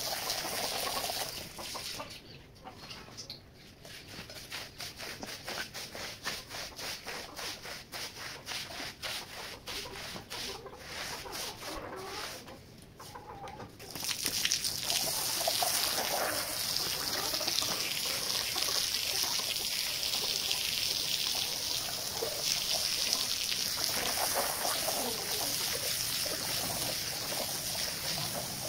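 Garden hose jet of water spraying onto a soaked rug and splashing off it. It is quieter and choppy for the first dozen seconds or so, then a steady, louder hiss from about halfway.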